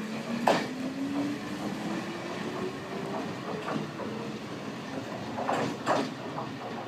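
Toyama Chiho Railway electric train accelerating away from a station. Its motors give a whine that rises in pitch over the first few seconds, while the wheels clack over rail joints: one sharp clack about half a second in and a couple more near the end.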